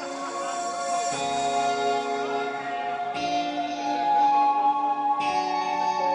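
Live instrumental progressive-metal band passage: sustained, ringing eight-string electric guitar chords, layered and changing about every two seconds, with no drums.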